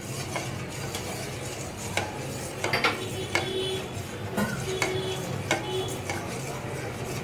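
Steel ladle stirring a thin flour, jaggery and milk batter in a steel saucepan, knocking and scraping against the pan at irregular intervals, the pan ringing briefly after some knocks, over a low steady hum. The batter is kept moving as it cooks so it does not stick to the bottom or form lumps.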